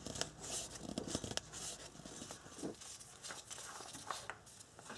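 Faint rustling and light, scattered clicks of a nitrile-gloved hand turning a new spin-on oil filter a full turn by hand, then handling parts on top of the engine.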